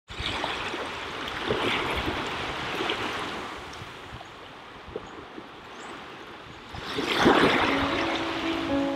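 Small sea waves washing in on a beach, swelling and falling, with the loudest wash near the end. Held music notes come in over it in the last second.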